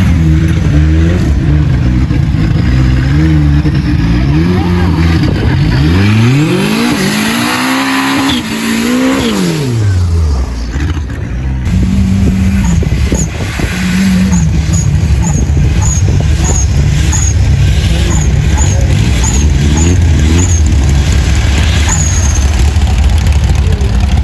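Off-road vehicle engine revving up and down as it works over rough ground, its pitch rising and falling repeatedly, with one long swell up and back down about a third of the way in. Short, high chirps repeat through the second half.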